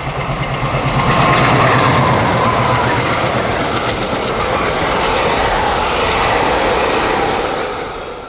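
Diesel locomotive passing with a freight train, its engine pulsing low at first, then the wagons' wheels clattering over the rail joints in a steady clickety-clack that fades away near the end.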